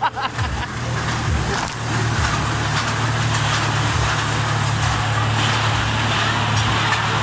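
Carnival horror train ride car running along its track: a steady low hum under constant rattling noise.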